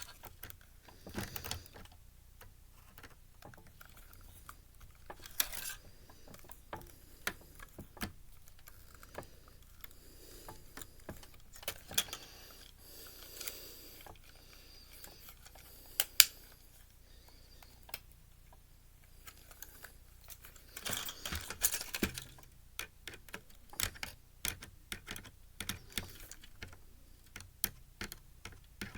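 Scattered light clicks, taps and rattles of small plastic and metal parts and a screwdriver being handled while a Blu-ray player is taken apart. The clatter comes thicker about three-quarters of the way through and again near the end.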